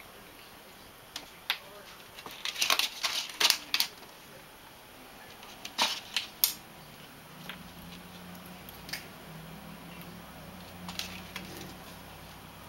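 Dry plant stems and seed pods crackling and rattling as a kitten bats and bites at them, in sharp clustered clicks during the first few seconds and again around six seconds in, then a few lighter ticks. A low steady hum comes in about halfway through.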